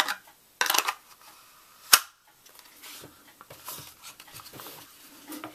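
Smith & Wesson Bodyguard 38 revolver handled in a molded Kydex holster: two short plastic scrapes, then a sharp click about two seconds in as the holster's retention snaps over the gun, followed by soft rubbing and handling.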